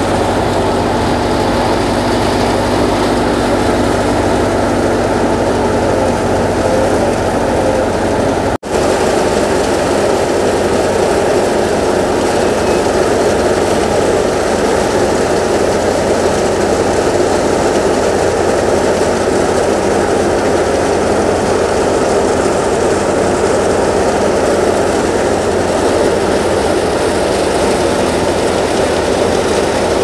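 Tractor-driven wheat thresher running hard while wheat stalks are fed in: a loud, steady, dense machine noise with the tractor's engine note underneath. The sound breaks off for an instant about nine seconds in, then carries on as before.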